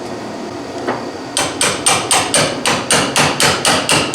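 A hammer striking a steel car door hinge in a steady rhythm of about four blows a second, starting a little over a second in, as a hinge pin is driven during a door hinge rebuild on a 1973 Oldsmobile Cutlass.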